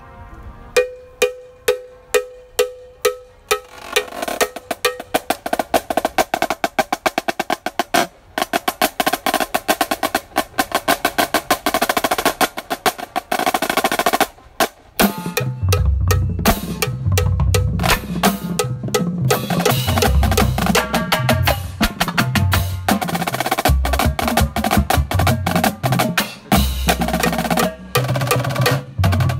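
High school marching drumline playing: the Pearl marching snare drums open with evenly spaced single strokes, then move into fast rolls and rudiment passages. About halfway through, after a brief break, the marching bass drums come in with low booms under the snares.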